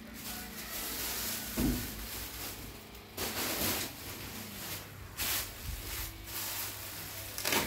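Thin plastic wrapping crinkling and rustling in several separate bursts as hands handle a plastic-wrapped soft case, with a thump about a second and a half in.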